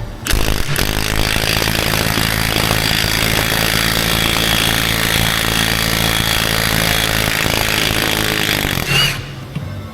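A handheld power tool runs steadily for about nine seconds, then stops, while the rusted-through fuel tank strap is being taken down.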